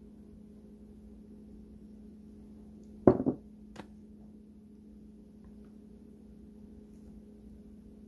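A single sharp knock about three seconds in, a kitchen vessel set down on a wooden table, followed by a small click. Otherwise only a faint steady hum.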